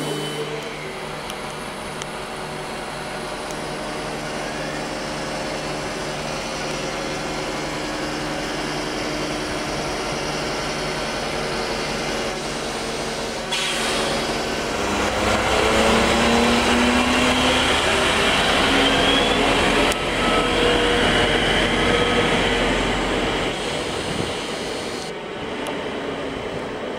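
ÖBB class 2068 diesel-hydraulic shunting locomotive running, a steady hum at first. About halfway through its engine grows louder with a deep rumble and a rising note as it moves, easing off again near the end.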